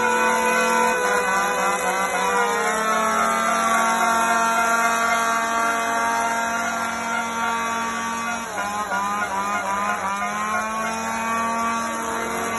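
Several two-stroke chainsaws revved and held at high speed together, their overlapping engine notes steady, sagging in pitch about two seconds in and dipping then climbing back around eight to eleven seconds in.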